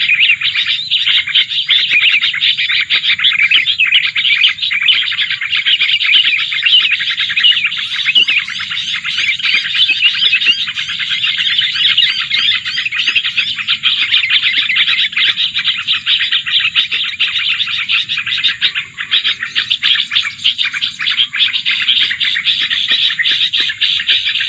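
Prinia birds chirping rapidly and without a break, loud and high-pitched: many quick, tightly packed chirps overlapping throughout.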